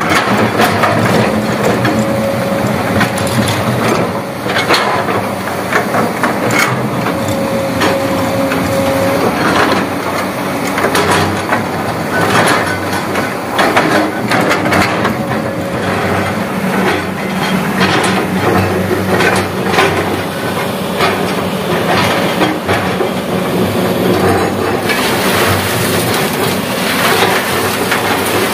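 Crawler excavator at work: its diesel engine runs under load with a hydraulic whine that comes and goes, while the bucket scrapes rock and loose stone and gravel clatter down in many sharp knocks. Near the end a brighter hiss joins in as soil and gravel pour from a bucket.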